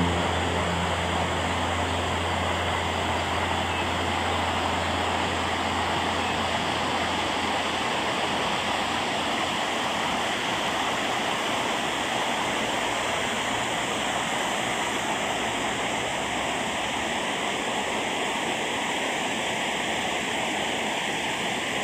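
Artificial waterfall: water falling and splashing in a steady, unbroken rush.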